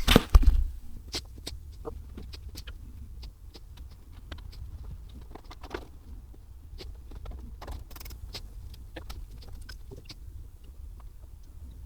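Hand tools and metal bolts being worked on a motorcycle fairing: a loud knock right at the start, then scattered, irregular light clicks and taps over a low steady hum.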